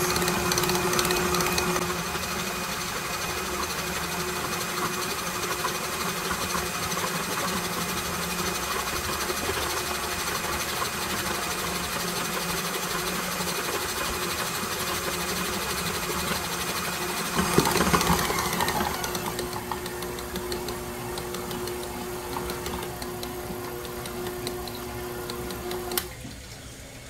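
KitchenAid Professional 6000 HD stand mixer motor running at high speed, its beater churning ground lamb and beef into a paste in the steel bowl. About two-thirds of the way through there is a brief louder swell and the mixer then runs quieter; near the end a click as the speed lever is switched off and the motor winds down.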